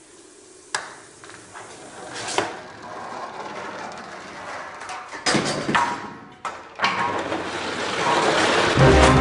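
A chain-reaction contraption of metal beer kegs, keg lids and rails in motion: a sharp click about a second in, then rolling, rattling and several hard clanking knocks. Near the end comes a rising rush as a plastic beer crate slides along a wooden chute.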